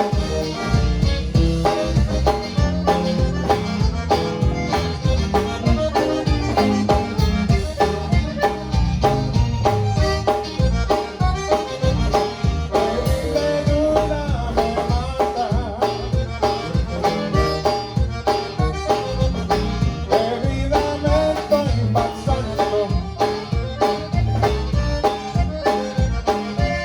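Live conjunto band music: a button accordion carrying the melody over a steady beat.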